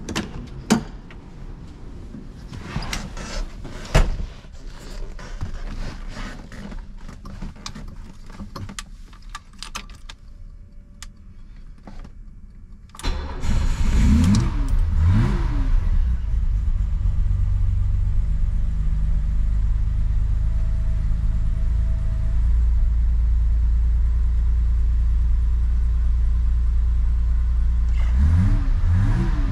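Scattered knocks and clicks, then about 13 seconds in the 1972 BMW 3.0CS's straight-six fires on a cold start. It takes two quick throttle blips and settles into a steady idle, with two more quick blips near the end.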